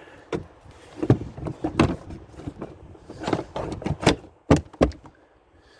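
Plastic car interior trim panels being handled and pressed back into place: an irregular series of knocks and clicks, with two louder knocks close together about four and a half seconds in.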